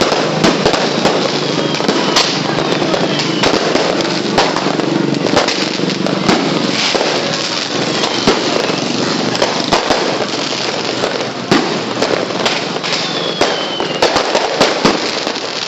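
Fireworks going off in rapid succession: many sharp bangs and crackles over a dense, continuous din, with a few short falling whistles.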